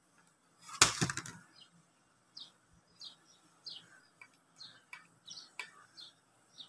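Clear plastic clamshell packaging crackling as a hand grip exerciser is pulled out, with one loud crackle about a second in. After that come small, sharp plastic ticks and rustles as the grip is handled, roughly one or two a second.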